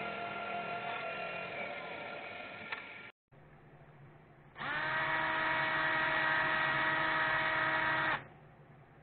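A power tool's electric motor runs for about three seconds and cuts off. Then a cordless drill spins up quickly and runs at a steady pitch for about three and a half seconds, boring through a small wooden lure body, before stopping.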